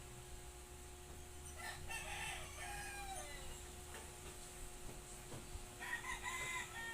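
Two drawn-out animal calls. The first starts about a second and a half in and falls in pitch at its end; the second starts near the end.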